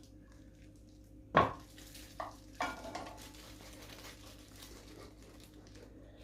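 Kitchenware being handled: a sharp knock of a utensil against a pot about a second and a half in, then two lighter clinks, the last ringing briefly, over a low steady hum.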